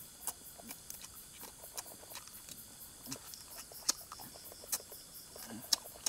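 Close-up eating sounds from a man tearing roast duck meat off the bone by hand and chewing it, with scattered sharp wet clicks and lip smacks.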